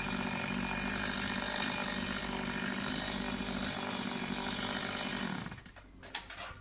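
Small power saw running steadily as it cuts into the top of a coconut palm trunk, then stopping and winding down a little over five seconds in.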